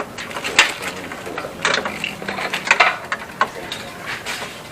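Irregular metallic clicks and rattles of a motorcycle clutch cable and its fittings being handled and seated as the new cable is fitted.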